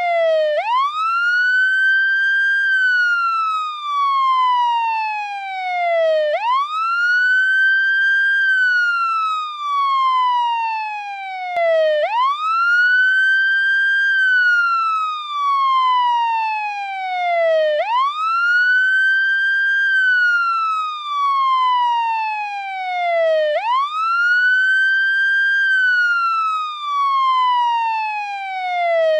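American police siren on its wail setting. The tone sweeps up quickly, holds briefly, then glides slowly down, repeating about every six seconds, five times in a row.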